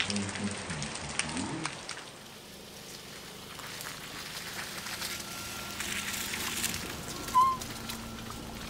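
Steady rain falling on vegetation. A low steady hum, the Ford EcoSport's engine idling, comes in over the last few seconds, and a short bird chirp sounds about seven seconds in.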